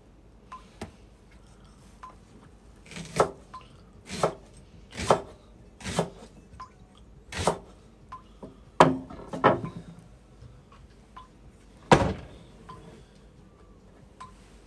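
Kitchen knife slicing through a Japanese long green onion and striking a wooden cutting board: about eight sharp chopping knocks, irregularly spaced roughly a second apart, with a pause before one last loud chop near the end.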